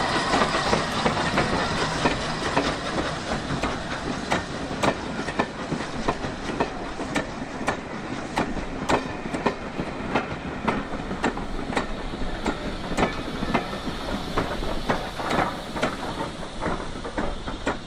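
Wheels of the train hauled by Flying Scotsman clicking over rail joints, sharp irregular clicks over a steady rumble that slowly fades.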